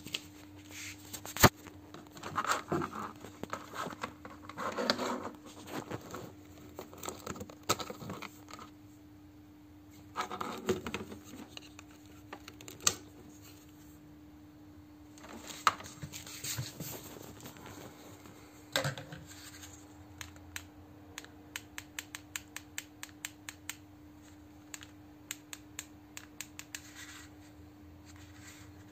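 Handling noise as the phone is moved around the TV box and its cables: rubbing, scraping and a few knocks. About two-thirds in, this gives way to a steady series of sharp clicks, about two a second, from buttons being pressed on the box's remote control. A faint steady hum runs underneath.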